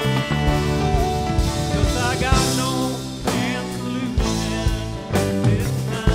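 Live rock band playing: electric and acoustic guitars, bass, keyboards and a drum kit together.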